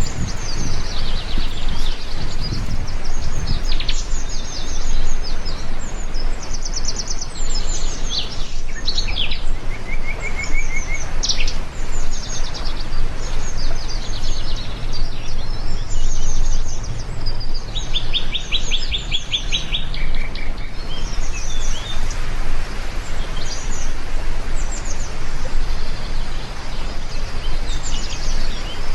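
Several birds chirping and singing, with quick trills, over a steady hiss of rain.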